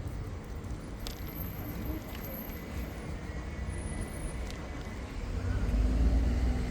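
Street sound heard from a moving bicycle: a steady low rumble of wind and road noise that swells near the end, with a few light clicks.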